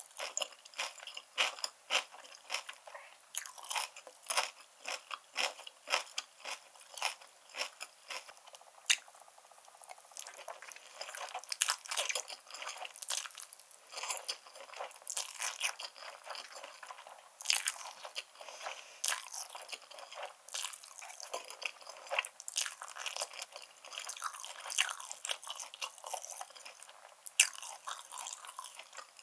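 Close-miked chewing and biting of black bean instant noodles topped with grilled beef and enoki mushrooms, a dense, irregular run of wet mouth clicks and short crunches.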